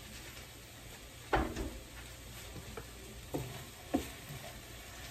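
Chicken and green onions being stirred with a wooden spatula in a frying pan over a low sizzle, with a few sharp knocks, the loudest about a second and a half in.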